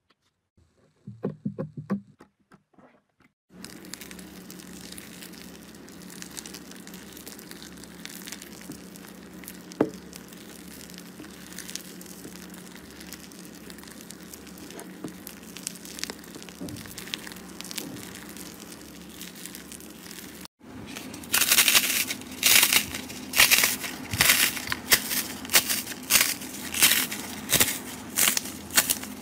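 Fingers pressing and breaking the dried, cracked crust on a bowl of slime, giving a rapid run of loud crackles and crunches that makes up the last third. Before that there is a soft, steady crunching as a spatula stirs slime packed with small beads, and near the start a brief squish as fingers poke a clear slime.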